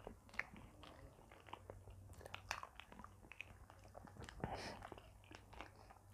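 Faint chewing, biting and mouth sounds of people eating bananas, made up of scattered soft clicks. About four seconds in there is a short rustle as a banana is pulled off the bunch.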